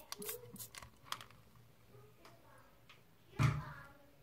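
A trigger spray bottle of degreaser spritzing a couple of short times, followed by faint handling ticks and one brief louder sound about three and a half seconds in.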